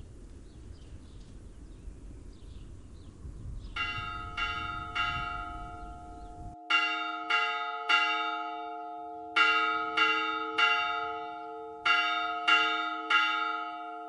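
A church bell in a tower, struck in groups of three strokes about half a second apart, each group followed by a short pause. Each stroke rings on into the next. Rushing outdoor noise is heard before the first group, about four seconds in.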